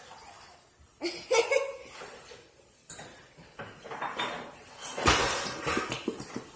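A utensil clinking and scraping against a bowl, with a louder scrape about five seconds in followed by a quick run of light taps.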